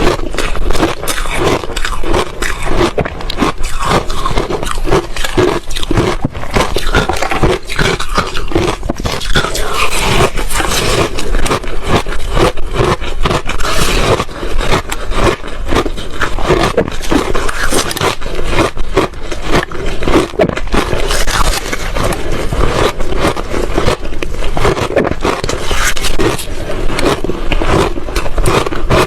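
Ice being bitten and chewed close to the microphone: a continuous run of loud, closely packed crunches and cracks.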